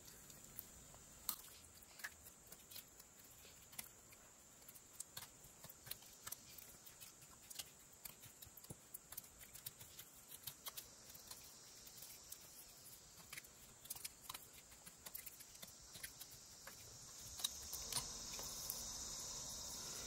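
Faint, irregular small clicks and scrapes of a Rough Rider pocket knife cutting into an eastern white pine block, over a steady high-pitched whine; a steady hiss grows louder near the end.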